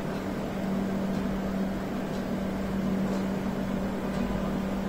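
Steady background hum with one constant low tone under an even hiss.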